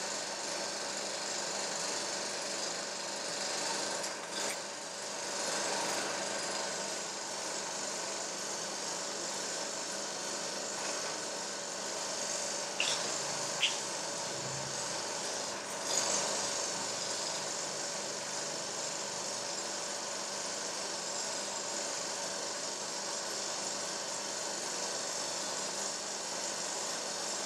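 A steady mechanical whirr and hiss, with a few sharp clicks about halfway through.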